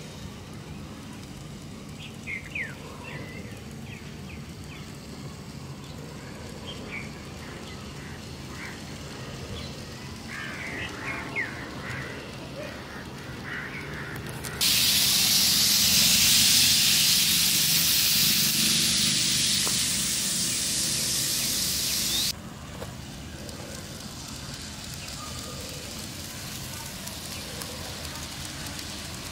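Faint outdoor background with a few short chirps, then a loud steady hiss that starts abruptly about halfway through and cuts off just as abruptly some seven seconds later.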